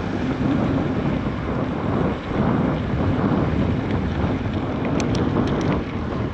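Wind buffeting the microphone while riding a bicycle: a steady, loud rumble. A few light clicks about five seconds in.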